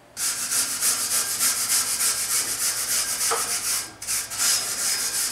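Gantry carriage of a CNC router table, its bearing wheels rolling along the steel rails as it is pushed by hand: a steady rolling rasp that breaks off briefly about four seconds in and then starts again. The carriage, stiffened so there is no play, still runs freely along the rails.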